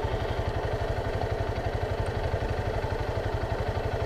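Motorcycle engine running steadily with a fast, even low pulse, its pitch unchanging.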